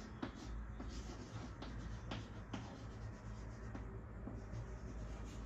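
Chalk writing on a chalkboard: a run of short scratching strokes and light taps as a word is written out by hand.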